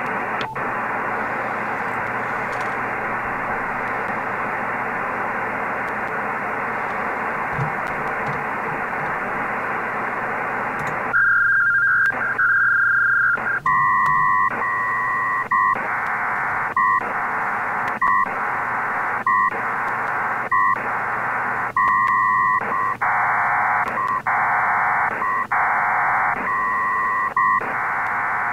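HF transceiver audio: steady band hiss from the receiver, then from about 11 seconds in a Pactor 3 data link starts. It is a train of loud bursts a little over a second apart, alternating between a warbling noise-like block and two steady tones, high and low, as the stations exchange packets and acknowledgements.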